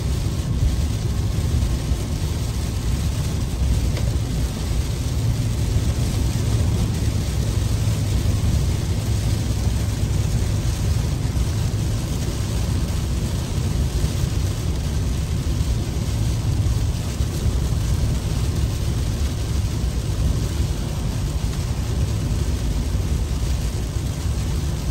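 Road noise inside a car cabin on a wet highway in heavy rain: a steady low rumble with the hiss of tyres on the flooded road and rain on the car.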